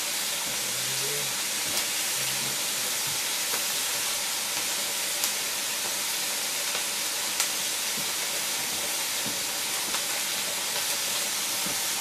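Meat frying in a pan: a steady sizzling hiss with a few sharp pops of spitting fat.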